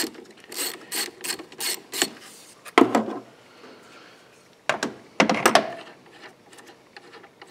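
Ratchet wrench clicking in quick, even strokes, about three a second, as the battery cable terminal nut is run off. A few louder separate knocks of parts being handled follow, one about three seconds in and a cluster around five seconds.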